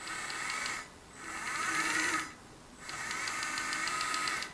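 Electric drive motor and metal transmission gearbox of a 1/14 RC hydraulic wheel loader whining as its raised wheels are driven in the air. It runs in three short spurts; the middle one rises and then falls in pitch, and the others carry a light rapid ticking.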